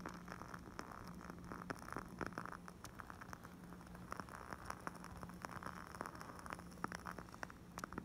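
Wooden candle wick crackling as it burns: faint, irregular little pops and clicks in quick succession, over a low steady hum.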